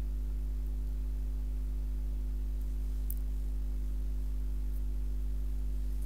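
Steady low electrical mains hum with a buzz of evenly spaced overtones, over faint background hiss; a faint click about three seconds in.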